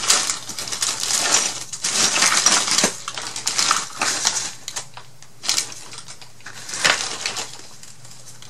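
Irregular crinkling and rustling with small clicks and taps as packets of paper craft flowers are handled and sorted through by hand.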